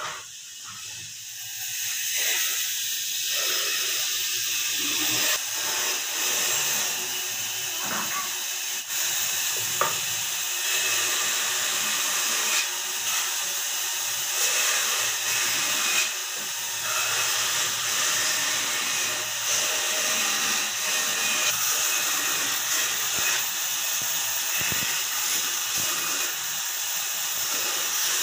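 Vertical bandsaw running and cutting through blocks of wood, a steady high hiss of the blade in the wood that sets in about two seconds in, with a few small knocks of wood on the table.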